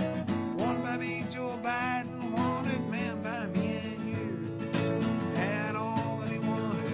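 A man singing along to his own strummed acoustic guitar, a Yamaha played with a capo.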